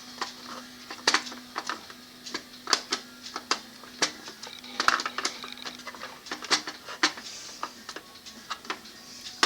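Irregular clicks, taps and knocks of a plastic toy doorbell decoration being handled and worked on while it is taken apart, over a faint steady hum.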